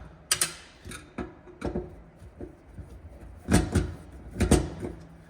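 Clicks and light knocks of a fuel tank sending unit and its seal being handled and fitted onto the tank. The loudest knocks come about three and a half and four and a half seconds in.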